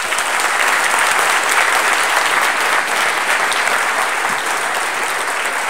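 Conference audience applauding, a dense, steady clapping.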